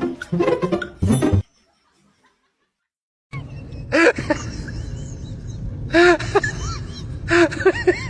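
A person laughing briefly, then a short silence. After it, over a steady background noise, an animal gives groups of short, arching calls, each rising and falling in pitch.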